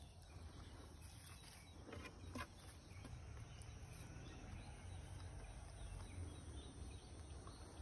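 Faint rustling and a few soft clicks as a young goat tugs at grass and a leafy plant, over a low steady rumble.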